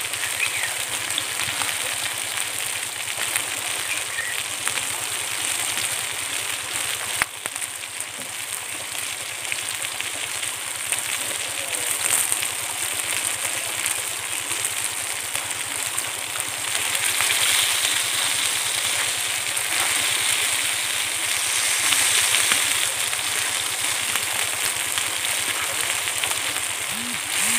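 Chargha chicken pieces sizzling and crackling on a fire-heated stone slab, a steady dense hiss. There is one sharp click about seven seconds in.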